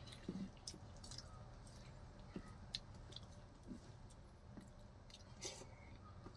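Faint chewing and squishing as a man eats rice mixed with milk payasam by hand off a banana leaf, with scattered small mouth clicks and smacks.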